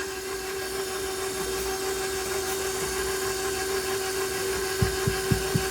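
A small electric motor running with a steady hum, with three short low thumps about five seconds in.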